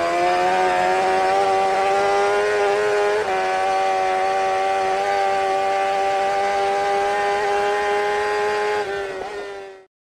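An engine held at high revs, one steady buzzing note with a brief dip about three seconds in, cutting off suddenly near the end.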